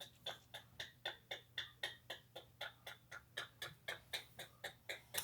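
Toy railroad crossing signal sounding its electronic bell: quick, evenly spaced dings, about four a second.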